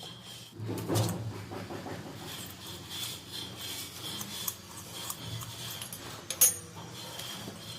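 Handling noise from fitting work: light clicks and rubbing of small metal parts, with a duller knock about a second in and one sharp click about six and a half seconds in.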